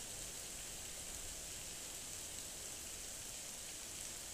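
Heavy thunderstorm rain pouring steadily onto pavement and a flooded road, a dense even hiss.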